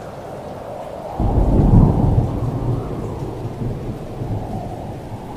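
Thunder over steady rain: a sudden deep clap a little over a second in, then a low rumble that rolls on and slowly fades.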